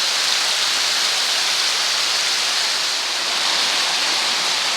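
Rushing river water, a steady, even hiss.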